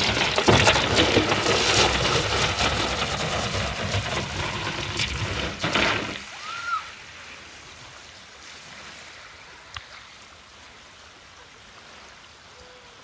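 Sea kayak with its paddler aboard sliding down a shingle beach in a seal launch, the hull grinding and scraping over the pebbles for about six seconds, then stopping suddenly as it floats off into the water.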